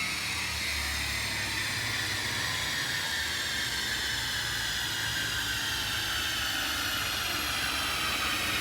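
Supercharged 2018 Mustang GT coasting down on a chassis dyno after a full-throttle pull: a high whine from the Vortech centrifugal supercharger and the spinning drivetrain and roller falls slowly and steadily in pitch over a low rumble as everything winds down.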